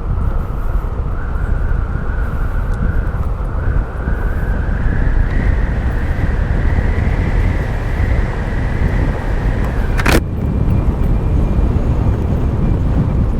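Yamaha Mio i 125 scooter descending a steep hill, with heavy wind rumble on the helmet camera's microphone and a high whine that climbs slowly in pitch as the scooter gathers speed. About ten seconds in there is a sharp click, and the whine stops.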